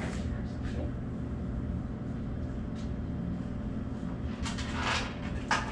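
Steady low mechanical hum of room equipment, with two brief rustles about four and a half and five and a half seconds in.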